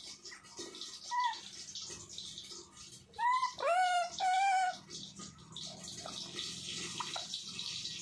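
A green parakeet calls three times in quick succession about three seconds in; each loud call sweeps up in pitch, then holds. A few soft, short chirps come before them.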